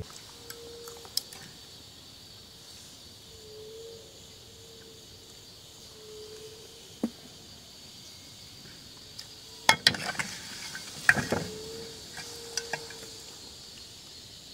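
Insects buzzing steadily in a high band, with short soft low tones recurring every second or two. A few sharp clicks come through, and a brief cluster of clatter about ten seconds in.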